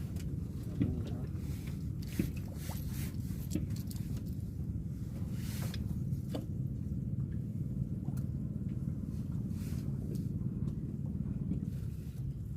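A steady low engine drone with a few light clicks and taps over it.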